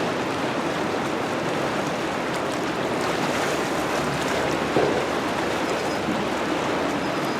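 Water rushing steadily through an open dam chute, a constant even roar of falling and churning water.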